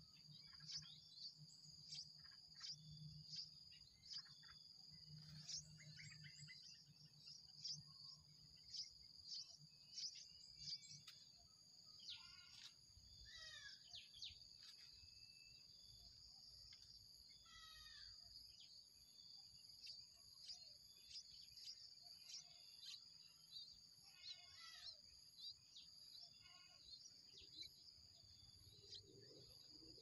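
Faint outdoor ambience: a steady high-pitched insect drone with many short bird chirps and calls scattered over it, some of them quick falling notes.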